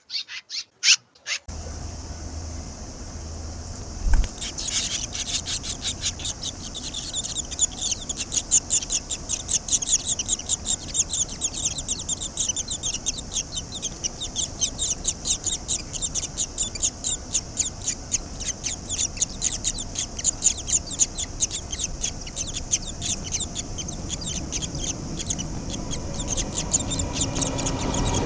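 Barn swallow chicks in the nest giving a rapid, continuous stream of high chirps, several a second, that starts about four seconds in. Under it is a low steady hum, with a thump just before the chirping begins.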